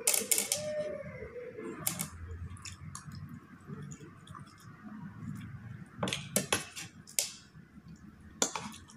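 Metal spoon and fork clinking and scraping against ceramic plates, in sharp clinks just after the start, about two seconds in, in a cluster around six to seven seconds in and once more near the end.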